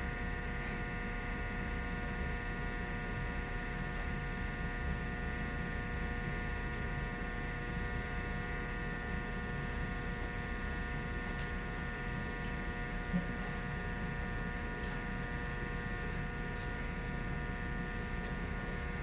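Steady electric hum with a whine of several constant tones, like a motor running without a break. A few faint ticks and one soft thump about two-thirds of the way through.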